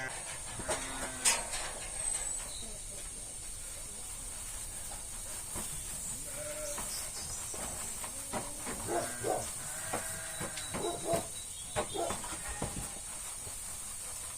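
Sheep bleating, a string of calls that comes thicker in the second half, over a steady high hiss. A sharp click about a second in.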